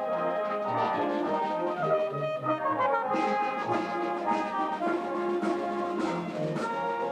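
Band music led by brass instruments, playing held notes that move in chords.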